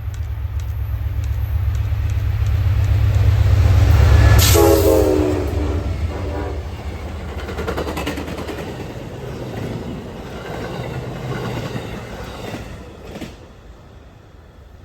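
Amtrak passenger train with four diesel locomotives passing close by. The locomotives' low rumble builds to a peak about four seconds in, where a short horn blast sounds, then fades as the cars go by with wheels clicking over the rail joints.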